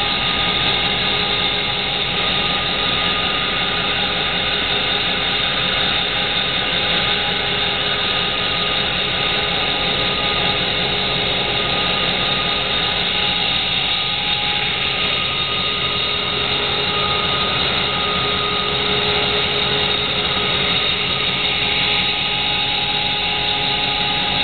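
Caterpillar D399 V16 diesel engine running steadily at a constant speed, with a couple of steady whining tones over the engine note.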